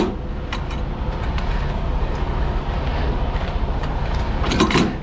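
Diesel semi-truck engine idling steadily, with a few metal clanks from the trailer's landing-gear crank being turned, a cluster of them near the end. The crank is still tight.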